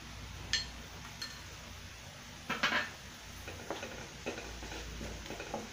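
A few sharp clinks and knocks of a spoon against a glass bowl as chilli powder is tipped out of it into a pan, the loudest about two and a half seconds in. A faint sizzle of frying oil runs underneath.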